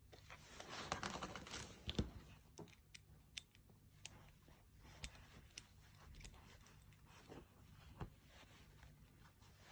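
Faint handling sounds of a refill bottle and a gold metal pocket lighter. There is a short rough hiss in the first two seconds while the bottle's nozzle is pressed into the lighter's base. After that come a few scattered small clicks and taps as fingers work the lighter.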